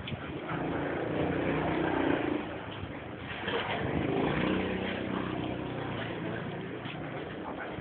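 A motor vehicle's engine running, its hum swelling up about two seconds in and again around four seconds, then easing off.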